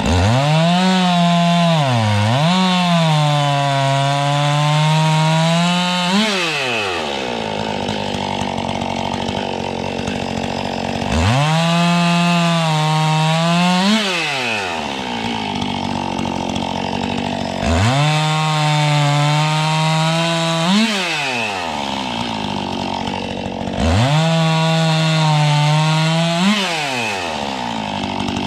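Two-stroke chainsaw cutting wood: four times the engine revs up and holds a high note for several seconds, the pitch sagging as the chain bites and rising briefly just before it drops back to idle between cuts.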